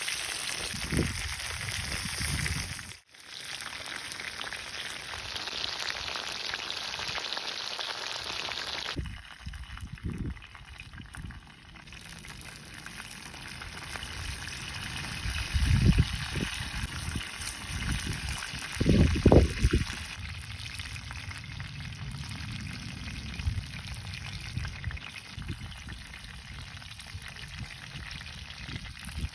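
Food sizzling as it cooks: a steady hiss that changes abruptly twice in the first third, as the sound cuts from one shot to the next. A few dull low knocks stand out about halfway through.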